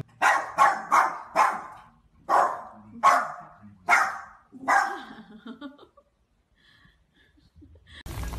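Small white dog barking in a quick series, about eight sharp barks over the first five seconds, excited at cheetahs on the television.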